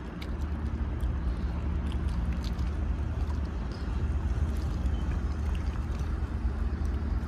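Steady low marine engine rumble from the tug and boats working the barge on the river, with a few faint ticks and splashes of water over it.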